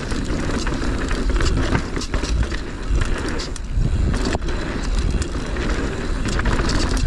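Mountain bike descending a dirt forest singletrack at speed: tyres rolling over the dirt and the bike rattling and knocking over bumps, with wind rumbling on the camera microphone.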